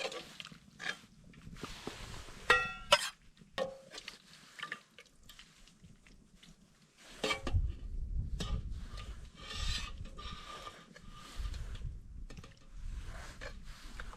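Metal cookware and utensils clinking, scraping and knocking while rice is stirred and cooked over a campfire, with one ringing metallic clink near the start. From about halfway a low rumble joins in.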